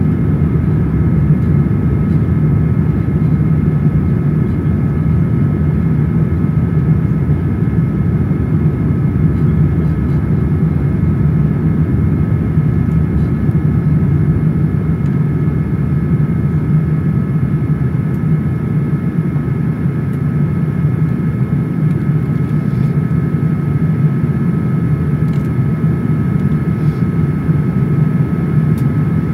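Steady cabin noise inside a Boeing 787-10 airliner: a constant low rumble of airflow and engines, with a few thin, steady high whines on top.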